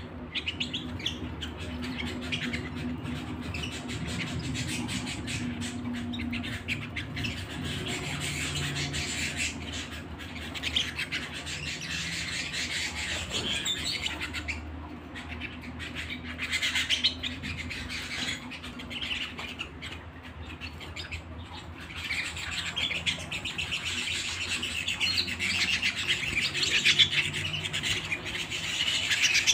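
Domestic canary singing a long, continuous song of rapid rolling trills and chirps, broken by short pauses.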